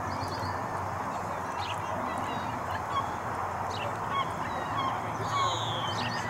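Ducks' short, thin whistled calls every second or two over a steady low background hum, with a longer falling whistle about five seconds in.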